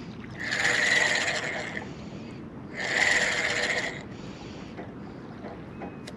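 Penn spinning reel being cranked in two quick bursts of a second or so each, its gears whirring as line is wound in.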